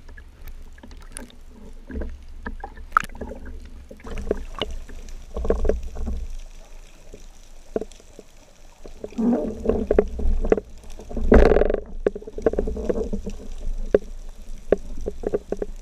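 Water sloshing and bubbling at and just below the surface, picked up by a camera on a speargun, with irregular knocks and clicks of handling. A louder rush of water comes about eleven seconds in.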